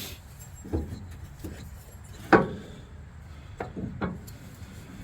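A handful of separate knocks and clunks from tools and parts being handled during truck suspension work, the loudest a sharp strike about halfway through.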